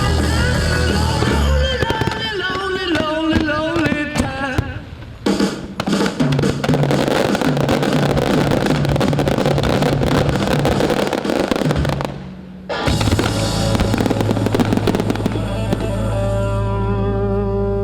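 A fireworks display crackling and banging under loud music with a steady bass line. The music dips briefly about five seconds in and again about twelve seconds in.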